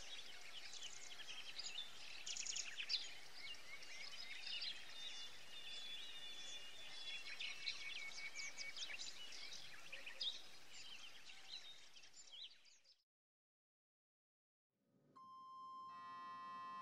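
Birds chirping over steady outdoor background noise, which fades out about twelve seconds in. After a short silence, a steady electrical hum of several held tones starts inside a train.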